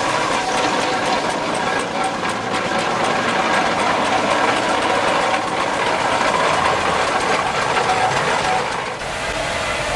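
Steam traction engine running, with steady hissing of escaping steam and the rapid beat of its engine as it pulls away.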